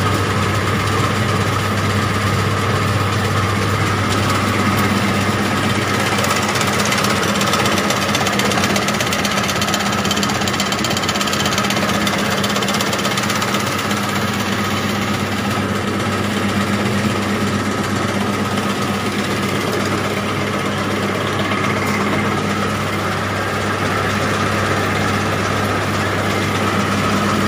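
A motor-driven processing machine running steadily, a constant low hum with a dense rattling vibration over it.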